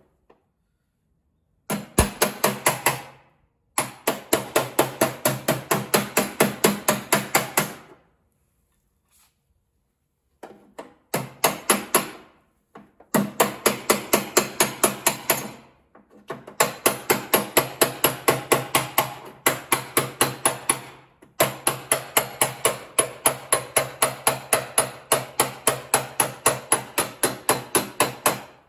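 Hand hammer tapping the rolled steel rear fender lip of a Mazda RX-7 FC, beating the lip back out to its original shape. The taps come in quick runs of about five a second with a short metallic ring, broken by brief pauses.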